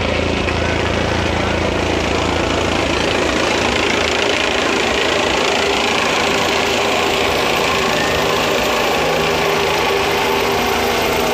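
Helicopter flying in low and close, coming down to land: loud, steady rotor and engine noise.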